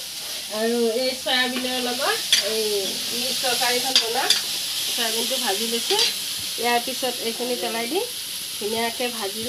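Vegetables sizzling as they stir-fry in an iron wok, with a metal spatula stirring and now and then clicking against the pan. A voice hums a tune over it throughout, in held and sliding notes.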